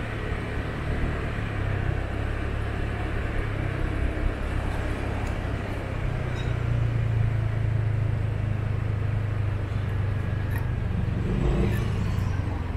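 Car driving on town streets: a steady low engine drone with road and tyre noise. The engine note shifts and grows a little louder about six seconds in.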